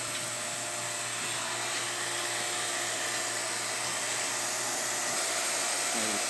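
Refrigeration vacuum pump running steadily with a low hum and a hiss, evacuating a refrigerator's sealed system before the refrigerant gas charge.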